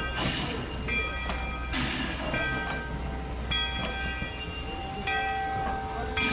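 Northern Pacific #924 steam locomotive moving slowly, its bell ringing over and over, about once every second and a half, with short hisses of steam in between and a steady low rumble underneath.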